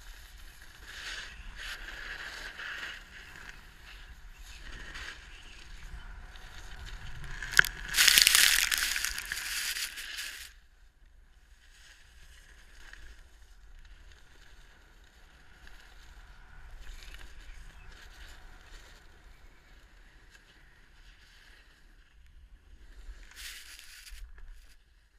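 Snowboard sliding and scraping over snow, with a much louder stretch of scraping from about eight seconds in that stops abruptly near ten seconds, after which it is quieter.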